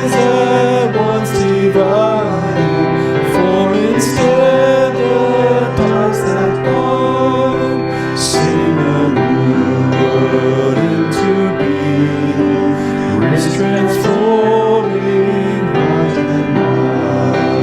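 Hymn music: piano accompaniment with a singing voice carrying the melody.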